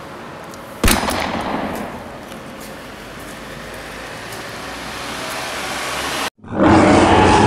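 A sudden loud bang about a second in, followed by a long noisy rumble that slowly grows louder. After a short cut to silence near the end, a loud sound effect with a steady droning tone begins.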